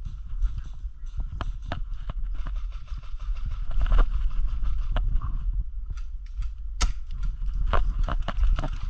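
Footsteps and the rattle of carried gear as a player moves over rough ground: irregular knocks and clicks, two or three a second, over a low rumble of wind and handling on the microphone, with one sharper click about seven seconds in.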